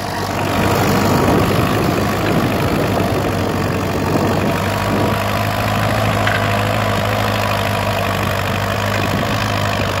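Fordson Dexta tractor's diesel engine running steadily under load as it pulls a mounted plough through the soil, with black exhaust smoke showing it working hard.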